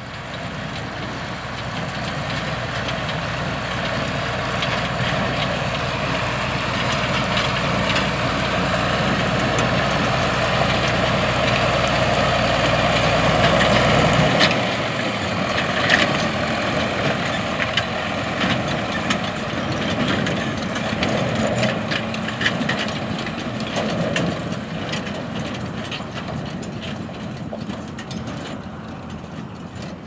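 Large John Deere diesel tractor engine running steadily as it pulls gravity grain wagons past, growing louder as it nears. After the middle, sharp clanks and rattles come in, and the sound fades as it moves away.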